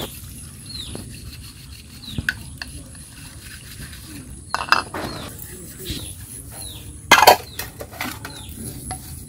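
Steel plates and bowls being washed by hand: dishes clinking and scraping as they are scrubbed and set on the stack, with a loud clatter about seven seconds in. A bird chirps over and over in the background.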